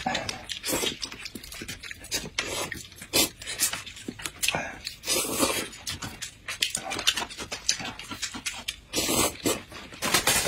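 Close-miked eating sounds: slurping cup noodles and wet chewing and mouth smacks, in quick irregular bursts.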